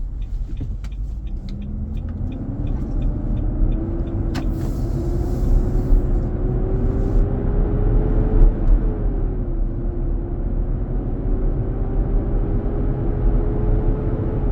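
Loud whooshing roar of the 2023 Nissan Armada's engine-driven cooling fan with its fan clutch engaged, heard inside the cabin, its pitch climbing as the SUV pulls away from a stop, dipping briefly about two-thirds of the way through, then climbing again. The fan clutch staying locked up is the fault behind the noise, which the dealer traced to it. A fast, regular ticking runs under it for the first couple of seconds.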